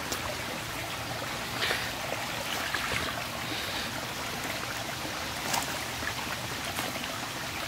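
Shallow woodland creek running over rocks, a steady rush of water, with a few light clicks on top.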